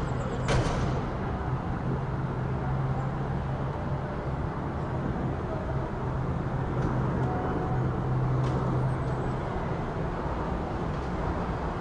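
City street ambience: steady traffic noise with a vehicle's engine idling close by as a low hum, which stops about three-quarters of the way through. Two short, sharp sounds come right at the start.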